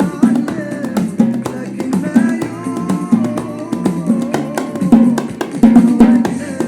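Music: a Gulf Arabic song with plucked strings over a regular percussion beat, a melody line sliding up and down in pitch through the middle.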